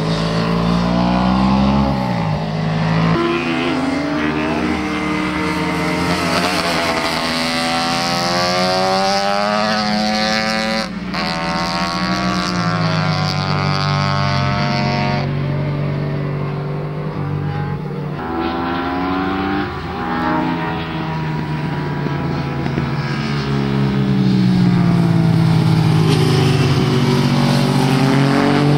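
Motorcycle engines accelerating and slowing as the bikes ride through corners, the engine pitch repeatedly rising and falling. The sound jumps abruptly a few times.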